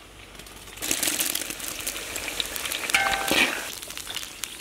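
Sliced green chilies dropped into hot oil in a wok, sizzling and crackling from about a second in.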